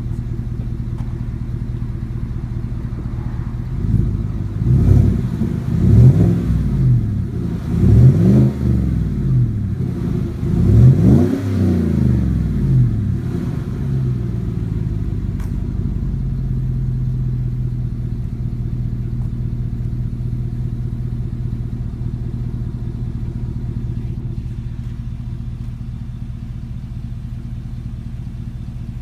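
2016 GMC Yukon XL's 5.3-litre V8 idling through a 3-inch cat-back single exhaust with a free-flow muffler and the restrictive valve removed. About four seconds in, the engine is blipped several times in quick succession, each rev rising and falling, then it settles back to a steady idle.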